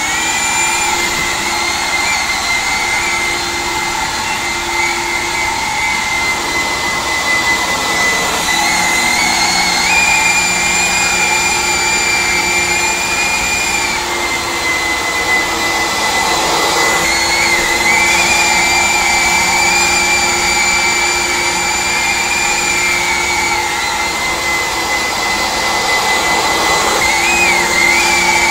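Kent hot water carpet extractor running, its vacuum motor sucking the water back up out of a dampened carpet while the brushes scrub. A steady loud whine that shifts slightly in pitch a few times.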